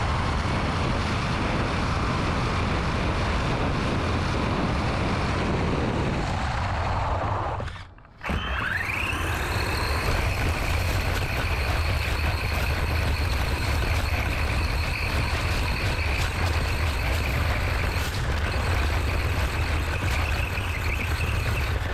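3D-printed RC car running fast, with steady wind noise on the microphone, tyre rumble and an electric motor's whine. Just before 8 seconds in, the sound cuts out briefly, then the motor whine rises in pitch and holds high.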